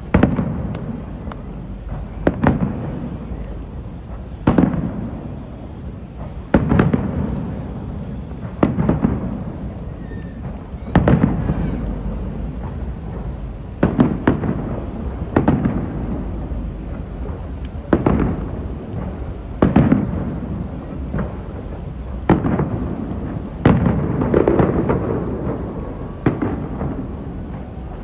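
Aerial fireworks shells bursting, a loud boom every second or two, each followed by a rolling low rumble of echo.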